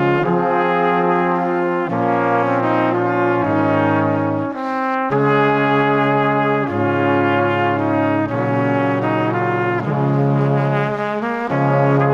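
Brass instruments playing held chords that change every second or two, with a brief gap in the low notes about four and a half seconds in.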